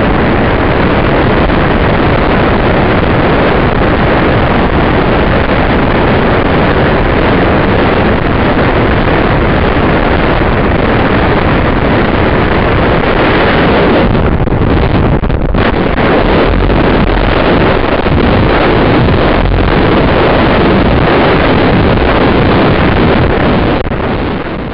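Steady, loud rush of wind over the balloon capsule's onboard camera microphone, thinning briefly about two-thirds of the way through and starting to fade near the end.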